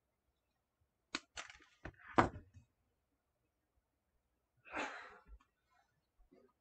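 A few sharp snips and clicks from hand pliers or wire cutters, the loudest about two seconds in, then a short rustle near five seconds as an artificial fish pick is handled.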